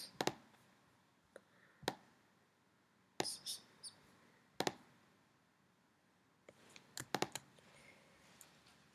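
Computer mouse buttons clicking: about a dozen sharp, short clicks, some single and some in quick pairs and triples, with quiet gaps between them.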